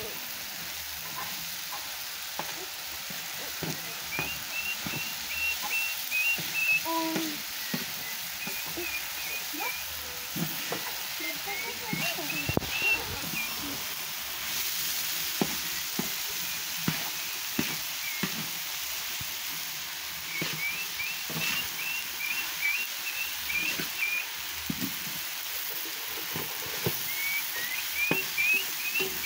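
Meat sizzling on a hot metal griddle while a metal spoon stirs and scrapes it, with frequent short clinks. A bird sings short runs of high chirps in the background several times.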